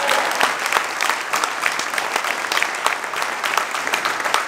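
Audience applauding: many hands clapping at once in a dense, even patter.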